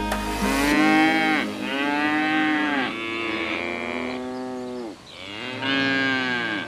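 Cow mooing: several long calls, one after another, each bending down in pitch at its end.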